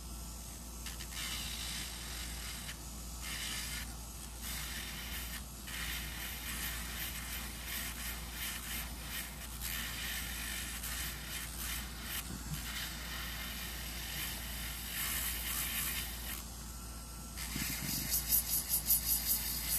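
Electric nail drill with a flat-edged bit grinding acrylic around the cuticle, a high scraping hiss that stops and starts as the bit is lifted and set back on the nail. Near the end it comes in quick rhythmic pulses.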